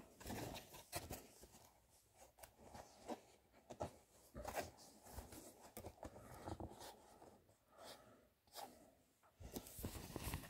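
Faint, scattered rustles, scrapes and small clicks of a toy box's cardboard and plastic packaging being handled and opened.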